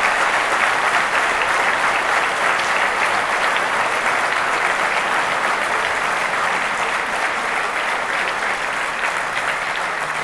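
Large audience applauding steadily, the clapping slowly fading toward the end.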